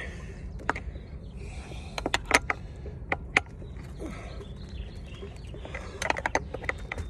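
Wrench turning a new threaded fitting onto the pressure-system plumbing: scattered metal clicks and clinks as the wrench is worked and reset, in clusters, over a steady low hum.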